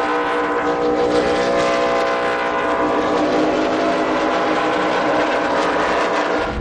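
A pack of NASCAR stock cars' V8 engines running together at steady high revs through a corner, a loud, dense, sustained drone.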